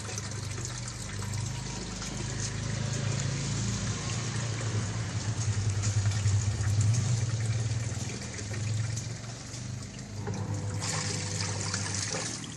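Samsung WA80U3 top-loading washing machine running a test cycle with water in the tub: water pouring and splashing over a low machine hum that swells and fades, while the water-level sensor is being set.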